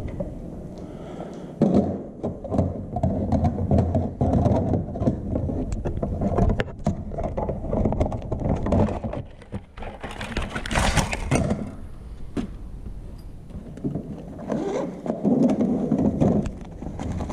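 Clicks, scrapes and thuds of a vending machine's cash box being handled and cash taken out, with a brief rustle about eleven seconds in.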